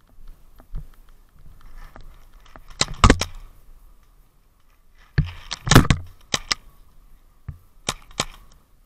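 Paintball markers firing, sharp pops in quick clusters: a group about three seconds in, a longer, louder run from about five to six and a half seconds, and a short pair near the end.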